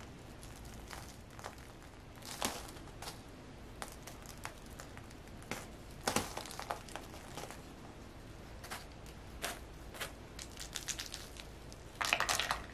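Potting soil and root ball rustling and crumbling onto newspaper as roots are loosened by hand during repotting, with scattered small clicks of falling pebbles. Near the end comes a louder, denser rattle as lumpy pot stones go into a pot.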